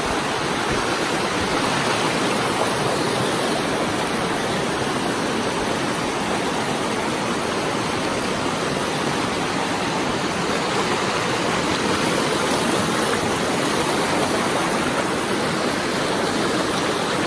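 Shallow, fast alpine river rushing over cobbles and boulders, a steady, unbroken rush of water heard close to the surface.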